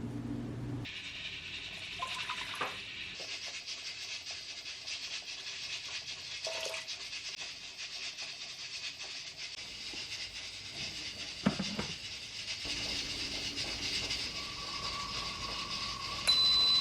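A steady kitchen hiss with one sharp knock, then short repeated high electronic beeps near the end.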